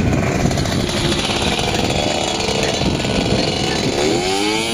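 Yamaha PW50 youth motocross bike's small 49cc two-stroke single-cylinder engine buzzing as it rides along the dirt track, the pitch rising near the end as it revs up.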